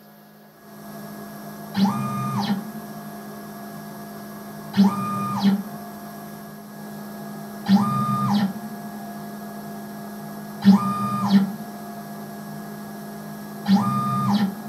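Stepper motor driving a retrofitted Emco F1 CNC mill axis back and forth five times, about every three seconds, during a repeatability check. Each move whines up in pitch, holds, and falls away as the axis speeds up and slows down, with a knock at the start and stop. A steady hum runs between the moves.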